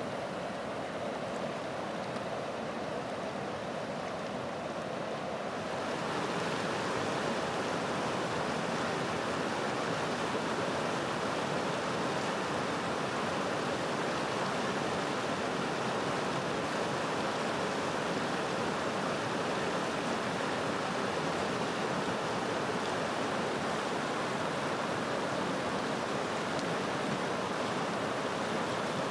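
Fast Alpine mountain river running high with snowmelt, rushing over boulders in a steady white-water roar. It gets louder and brighter about six seconds in.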